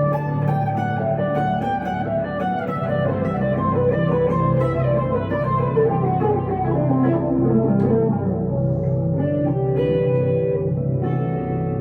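Electric guitar, a 1962 Gibson Les Paul Custom through a Two-Rock amp, playing a melodic lead line over sustained low notes, with a falling run of notes in the middle.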